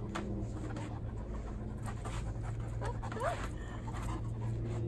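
A dog panting, with a short high whine about three seconds in, over a steady low hum.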